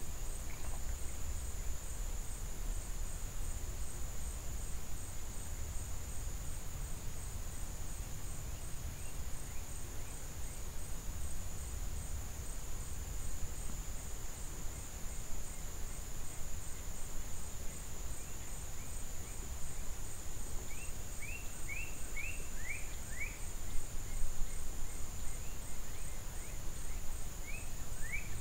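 Steady high-pitched insect drone over a low rumble. A bird breaks in with quick runs of short, falling chirps about three quarters of the way through and again at the very end.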